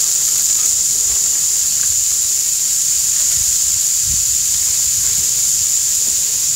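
Chopped bell peppers and onions sizzling in bacon grease on a hot flat-top griddle: a loud, steady, high hiss.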